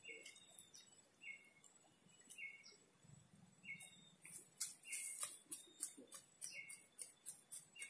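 An animal chirping a short call about once every second and a quarter, over a thin steady high insect whine and scattered faint clicks.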